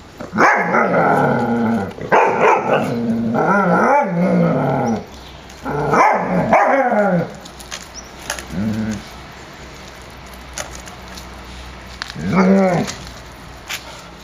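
Airedale Terriers barking and growling in play. The sound comes as a string of drawn-out bursts over the first seven seconds, then a short one and another burst near the end.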